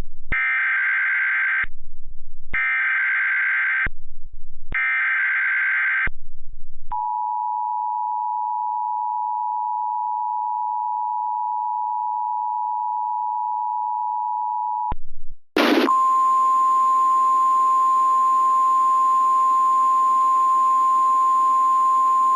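Emergency Alert System tones: three short bursts of screeching digital header data, then about eight seconds of the two-tone attention signal. After a short break comes a single steady tone over hiss. These tones herald a tornado warning.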